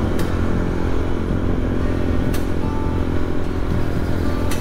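Motorcycle engine running steadily under way, with road and wind rumble, and three brief sharp clicks.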